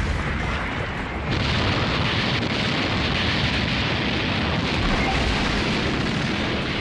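Anime sound effect of a massive punch's explosive blast: one long, unbroken rumbling explosion that gets brighter about a second in.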